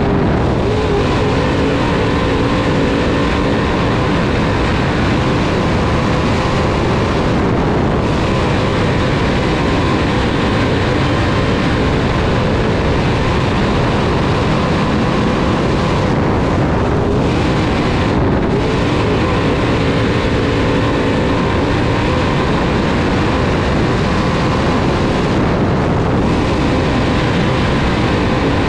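Dirt-track race car's engine running hard at speed on a qualifying lap, heard from inside the cockpit: loud and steady, with brief dips in its upper hiss a few times.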